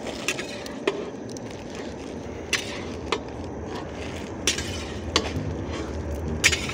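Long-handled metal spatula scraping and clinking against a large iron kadai while chopped cauliflower is stir-fried in it, with sharp clinks at irregular intervals.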